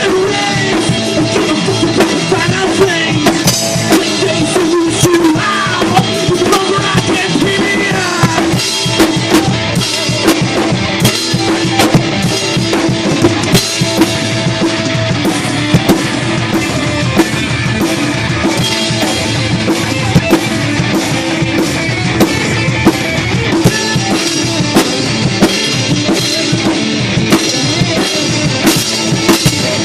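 Punk rock band playing a song loud, the drum kit's kick and snare prominent in a steady beat under sustained instrumental tones.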